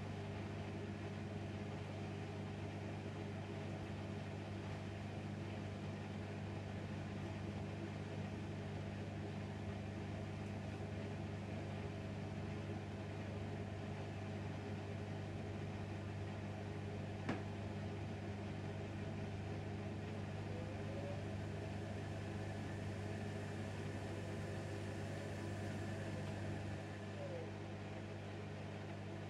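Bosch WAQ28470GB washing machine running at the start of an empty spin-only cycle, giving a steady low electric hum. There is one sharp click about 17 seconds in, and the hum drops slightly near the end.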